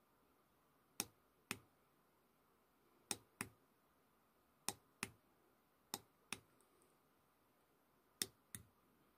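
Small tactile push-button on an electronics board pressed and released five times, each press a pair of sharp clicks about half a second apart.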